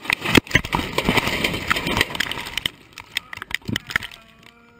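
On-board crash noise inside a small aircraft: dense rattling and sharp knocks that die down about three seconds in, leaving scattered clicks. Near the end a steady humming tone with several overtones starts.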